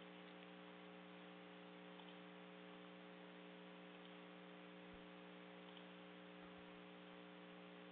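Near silence: a faint, steady electrical hum with light hiss on the conference audio line.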